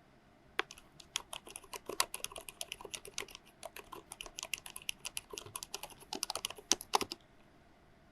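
Typing on a COX CK01SL mechanical keyboard with 45gf low-noise white switches and PBT keycaps. A quick, irregular run of key clicks starts about half a second in and stops about a second before the end.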